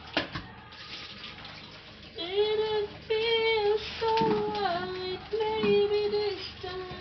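A high voice singing a few held notes of a tune, starting about two seconds in, over a tap running into a kitchen sink. Plastic dishes and a basin clatter at the start.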